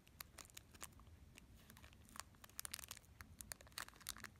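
Thin clear plastic bag crinkling and crackling between fingers as the small cartridge fuse inside it is handled. Faint, in scattered crackles that come thicker from about a second and a half in.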